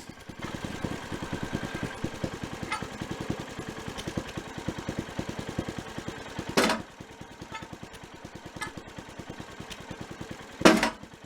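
An engine running steadily with an even, fast chugging beat, likely from the machinery used to load and square the log. Two loud knocks cut through it, one about two-thirds of the way in and a louder one near the end.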